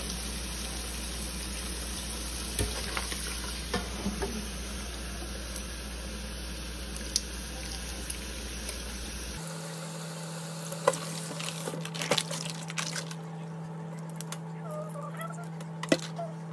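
Tap water running steadily into a stainless steel sink while raw shrimp are peeled under it, with small clicks of shells and handling. About nine seconds in the running sound cuts off suddenly, leaving a low hum and scattered clicks and rustles of shells and the plastic bag.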